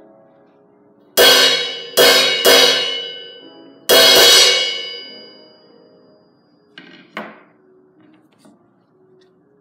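Suspended cymbal struck with a wooden drumstick: four loud crashes about a second in, at two seconds, at two and a half seconds and at four seconds, each ringing on and fading. Two lighter, shorter hits follow near seven seconds.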